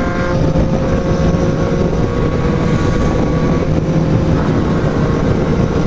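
Kawasaki Z750 inline-four motorcycle engine cruising at steady highway speed, its note holding a constant pitch, under heavy wind rush on a helmet-mounted microphone.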